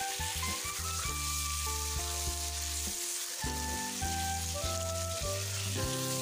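Fish pieces frying in hot oil in an iron kadai, sizzling steadily while a spatula turns them. Background music of held notes plays underneath.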